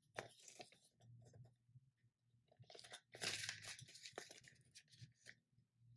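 Paper banknotes rustling and a clear plastic cash envelope crinkling as bills are slipped into it, loudest a little past halfway.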